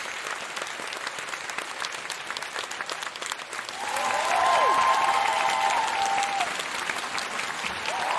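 Large crowd applauding steadily, with cheering voices joining about four seconds in and the applause growing louder.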